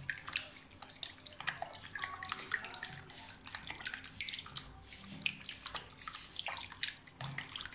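Hands mixing and turning chicken pieces in a bowl of liquid marinade: irregular wet sloshing and squelching splashes, fairly quiet.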